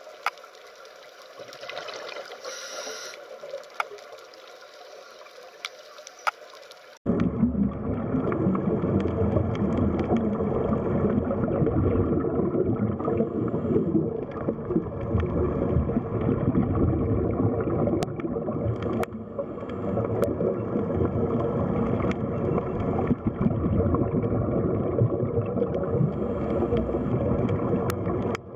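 Underwater ambience: a steady, churning water noise with a few faint clicks. It is quieter at first and turns abruptly louder and denser about seven seconds in.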